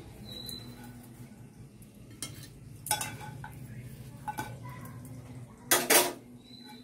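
Kitchen utensils clinking and knocking against a pan and plates, with a few light clinks and a loud double knock near the end, over a steady low hum.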